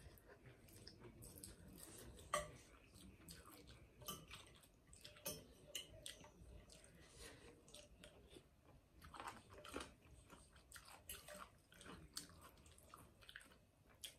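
Quiet, close-up eating sounds: a person chewing and slurping rice noodles in broth and sipping broth from a spoon, in short irregular wet clicks and smacks.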